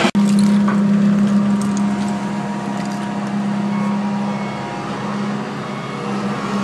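Engine of construction machinery running steadily, a constant low hum, with a few faint clicks and scrapes of debris.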